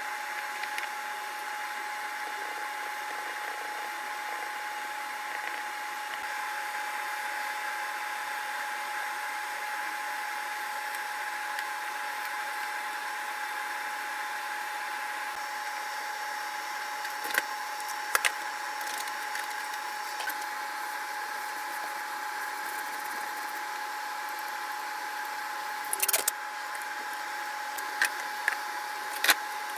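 A machine running steadily, a constant hum with a single steady whine. A few sharp clicks and knocks from handling clamps and tape come over it in the second half, the loudest one about 26 seconds in.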